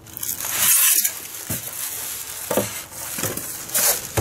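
Plastic wrapping crinkling and foam packing blocks rubbing as a plastic-wrapped wheel is lifted out of a cardboard box, with a few short knocks.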